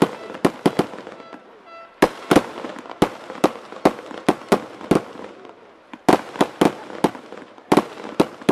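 Aerial fireworks shells bursting in a rapid series of sharp bangs, several a second, with brief lulls about a second in and again just before the six-second mark.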